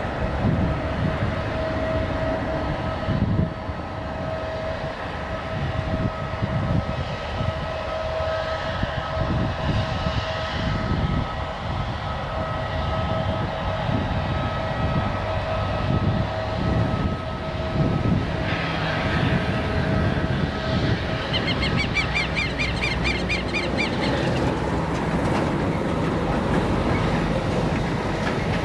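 Airbus A319 jet engines at taxi power: a steady whine over a deep rumble as the airliner turns to line up on the runway. The whine fades out about three-quarters of the way through, and a quick run of high chirps comes shortly after.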